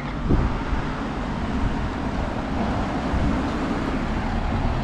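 Road traffic driving past close by: a car and then a van going round a bend, engine and tyre noise, with wind on the microphone.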